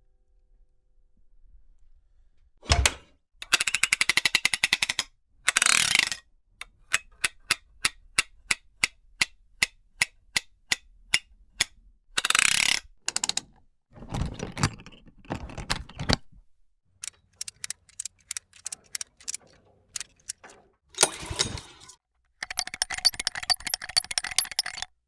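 A run of short mechanical sound effects, one after another: a knock, a fast ratcheting rattle, a steady series of clicks about four a second, several short grinding bursts, and another fast rattle near the end.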